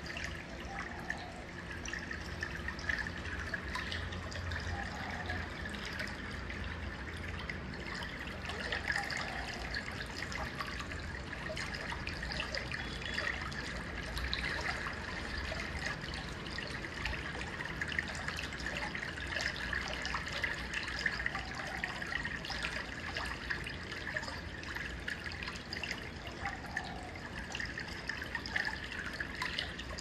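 Rain dripping and trickling steadily, with many small scattered ticks of drops.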